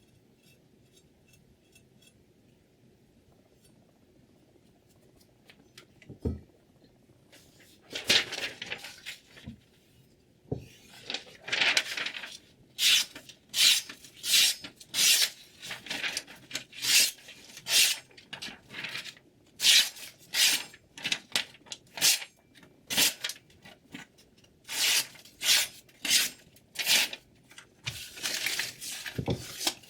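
A chef's knife blade worked in short, repeated scraping strokes, about one a second, starting some eight seconds in after a quiet stretch.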